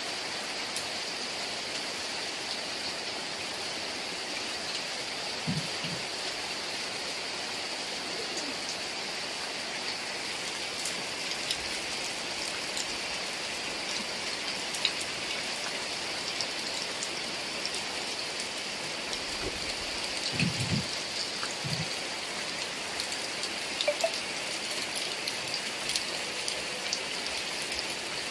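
Heavy rain falling in a steady hiss, with scattered sharp drip ticks and a few short low thuds about a fifth of the way in and again about three-quarters of the way in.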